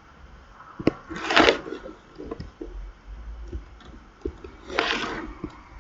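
Two quick breaths drawn in close to the microphone, about three and a half seconds apart, with small mouth clicks and lip smacks around them.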